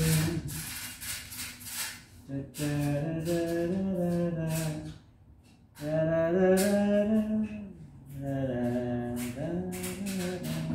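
A man singing a slow melody without accompaniment, in long held notes with short breaks between phrases.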